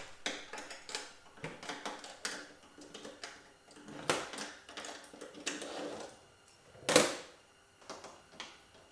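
Hardware being handled at a workbench: an irregular string of clicks and clinks of bolts and metal parts, with one sharp knock about seven seconds in.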